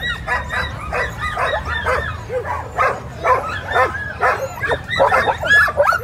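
A team of sled dogs barking and yipping at the start line, many dogs at once in a dense, overlapping chorus of short high calls, the excited din of a team straining to be released.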